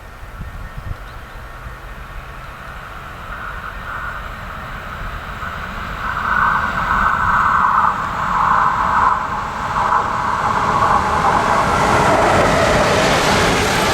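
A train approaching on the line, its rumble growing steadily louder, with a high screech that comes and goes from about a third of the way in.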